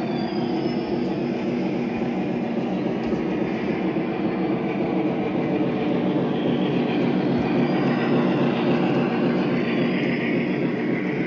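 Model train running past on the layout track: a steady rumble of wheels and motor that holds level throughout.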